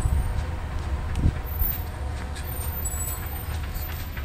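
Low, steady rumble of a loaded freight train rolling away down the line after its last car has passed.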